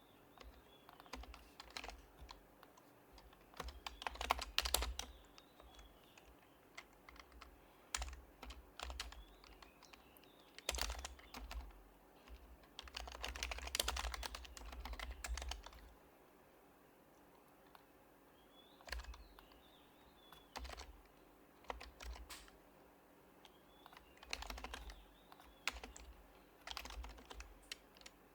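Typing on an HHKB Professional Hybrid Type-S keyboard with silenced Topre switches. Short runs of keystrokes come in bursts with pauses between them, including a longer pause a little past the middle.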